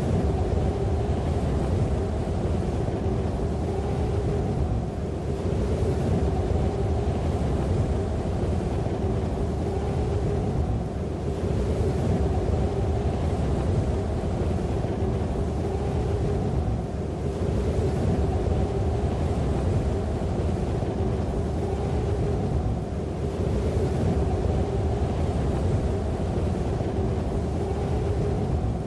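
A steady motor drone over a low rumble, easing off briefly about every six seconds.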